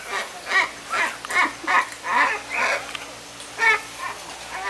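Macaws calling in a rapid series of short squawks, about two a second, with a brief pause about three seconds in.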